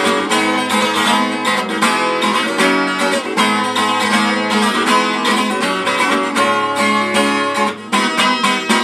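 Acoustic guitar playing an instrumental passage between sung verses: chords played in a steady rhythm, with no voice.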